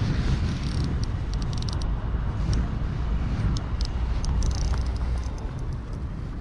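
Wind buffeting the microphone as a steady low rumble, with scattered light clicks and ticks, a cluster in the first couple of seconds and a few more later.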